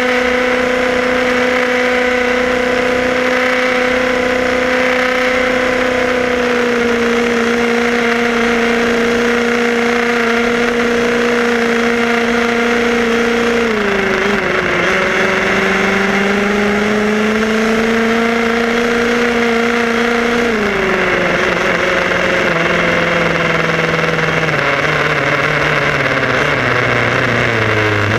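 HPI Baja 5B SS two-stroke gas engine buzzing at steady throttle, heard close from a camera on the car. Its pitch dips about halfway through, climbs back slowly, drops again a few seconds later and keeps falling toward the end as the throttle is eased.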